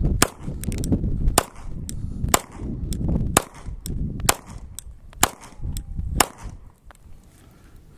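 Semi-automatic pistol, a Polymer80 Glock-pattern build, fired in a steady string of about seven shots roughly a second apart, each with a short echo; the firing stops a little over six seconds in. Wind rumbles on the microphone throughout.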